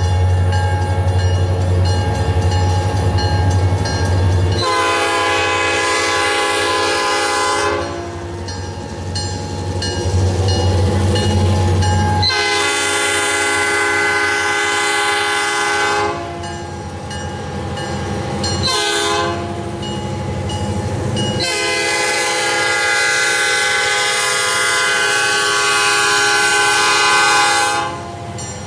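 Diesel locomotive's air horn sounding the grade-crossing signal: long, long, short, long. The first blast begins about five seconds in and the last runs until near the end. Under it, the crossing bell rings steadily, about two strikes a second.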